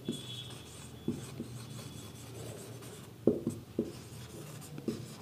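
Marker writing on a whiteboard: scattered taps and short scratchy strokes as the letters are written, most of them in the middle and near the end.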